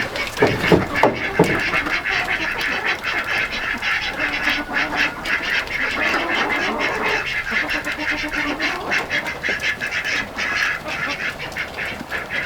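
A flock of poultry calling together, a dense continuous chatter of many overlapping short calls. A few knocks in the first second and a half.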